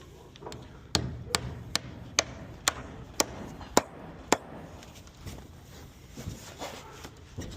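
Eight sharp hammer blows on wood about half a second apart, spacing out slightly, followed by a few quieter knocks near the end.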